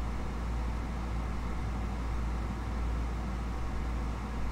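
Steady low hum with an even hiss over it: unbroken background room noise, with no distinct events.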